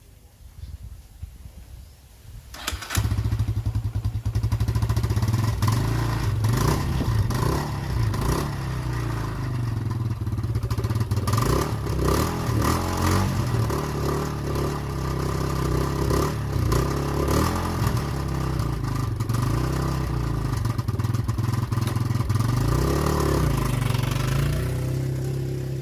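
Kawasaki D-Tracker 125's single-cylinder fuel-injected engine starting up about three seconds in and then running steadily, its speed rising and falling a little, now that the partly blocked fuel injector that kept it from starting has been cleaned.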